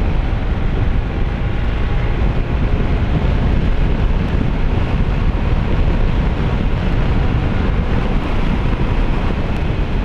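Wind rushing over the microphone of a camera on a Honda ADV 160 scooter cruising at highway speed, with road and engine noise underneath. The noise is loud and steady throughout.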